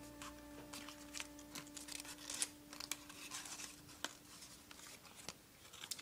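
Sheet of plain white paper rustling and crackling in short, irregular crinkles as it is handled and creased by hand, over a faint held background music note that fades out.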